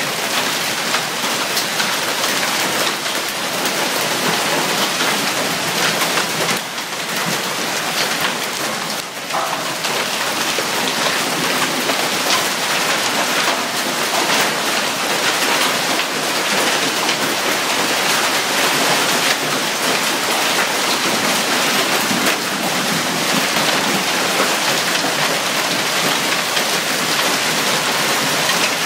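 Heavy rain and nickel- to quarter-sized hail pelting the pavement: a loud, dense, steady hiss crowded with sharp ticks of hailstones striking.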